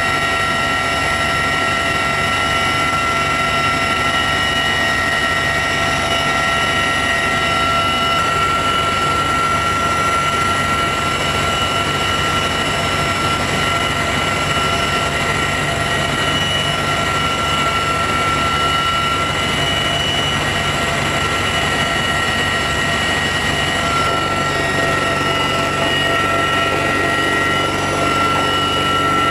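Cabin noise of a CH-53E Super Stallion heavy-lift helicopter in flight: a steady loud rush with several constant high-pitched whines.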